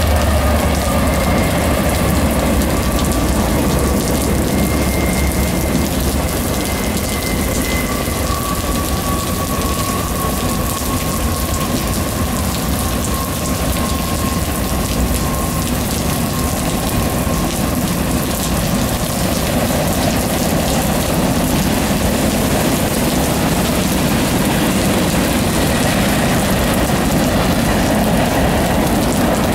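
Freight cars of a CSX manifest train rolling past in the rain: a steady noise of wheels on rail mixed with the hiss of rain, with the locomotives' low engine drone fading about two seconds in. A faint high whine runs through the first half.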